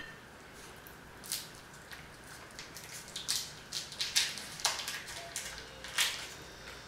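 Irregular crinkling and clicking from handling the candy pieces and their wrappers, about a dozen sharp crackles over several seconds.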